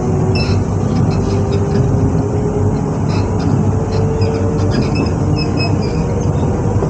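Z2N double-deck electric train, motor coach Z 20783, standing at the platform with its equipment running: a steady hum over a deep rumble, with faint tones slowly drifting in pitch.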